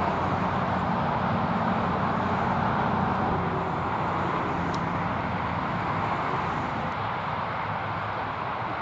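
Road traffic noise: a steady rush of tyres and engines with a low hum, a little louder in the first few seconds and easing slightly toward the end.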